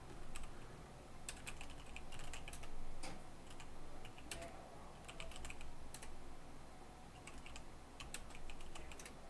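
Computer keyboard typing in short irregular bursts of keystrokes with brief pauses between them.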